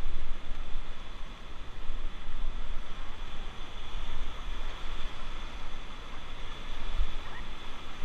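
Rushing whitewater rapids, with wind buffeting the microphone in uneven gusts.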